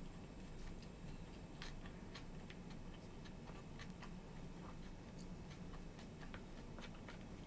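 Quiet eating sounds: faint, irregular clicks of chewing and of wooden chopsticks picking at food in a plastic bento tray, over a low steady room hum.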